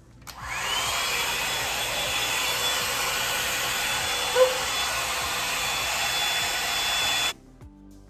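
Bed Head Blow Out Freak hot-air brush dryer running on its high heat setting: its motor whine rises as it spins up, then settles into a steady rush of blowing air. A brief short sound stands out about four seconds in, and the dryer cuts off suddenly near the end.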